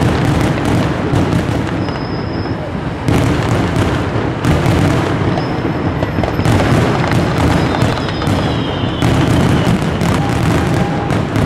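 Fireworks finale: aerial shells bursting in rapid, overlapping succession, the booms and crackle running together into one continuous barrage.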